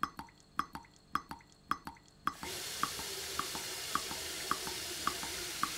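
A clock ticking in an even tick-tock. About two seconds in, a single-lever mixer tap is turned on and water runs from it steadily, with the ticking going on beneath.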